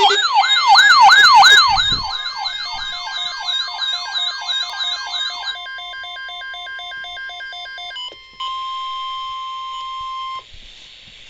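Electronic alert sounds. A siren rises and falls in a fast yelp, several times a second, layered over other alarm tones. About halfway through it gives way to pulsed beeping tones, then a single steady alert tone lasts about two seconds and cuts off suddenly.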